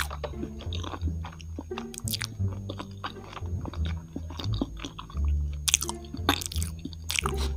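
A person chewing a mouthful of takoyaki close to a clip-on microphone, with a string of short, sharp mouth clicks and smacks.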